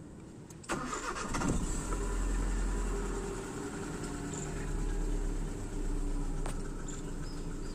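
Hyundai Accent SOHC 12-valve petrol engine starting up about a second in and then idling steadily, with the tapping that is put down to lifter or tappet noise.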